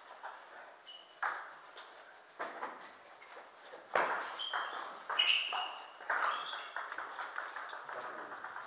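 Celluloid table tennis ball clicking sharply off the paddles and the table in an irregular series of hits, some with a short high ping, echoing in a gym hall.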